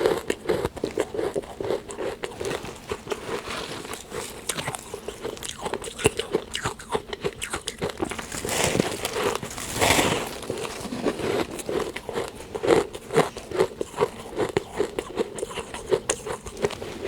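Close-up biting and chewing of soft freezer frost: a steady run of quick, crisp crunches, with a longer, louder crunch about nine to ten seconds in.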